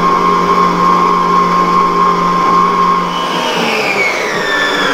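Mito MX100 stand mixer running steadily on low speed, its beater working batter in a steel bowl. Near the end the motor's whine falls in pitch as it winds down on being switched off.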